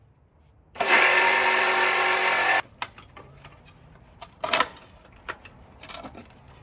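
A power tool runs in one steady, loud burst of about two seconds, starting about a second in and cutting off suddenly. Scattered clicks and knocks of metal parts and tools being handled follow.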